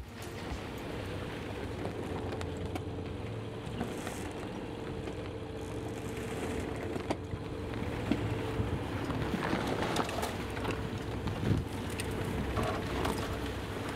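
Wind and sea noise on the deck of a sailing ship under way, with a faint steady hum underneath. It grows a little louder with gusts after about eight seconds.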